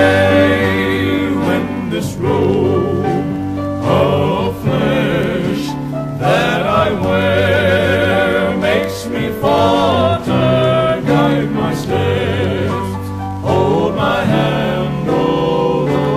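Male gospel quartet singing a slow hymn in close harmony, held notes with vibrato over a sustained low bass line.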